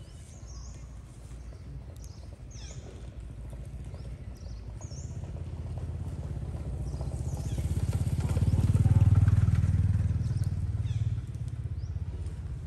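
A motor vehicle's low engine rumble that swells to its loudest about nine seconds in and then fades, as it passes by. Several short high chirps sound in the first few seconds.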